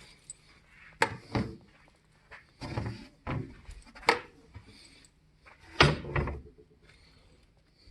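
Chairs being moved and set down: a series of separate knocks and thuds, several in close pairs, with quiet between and no vacuum running.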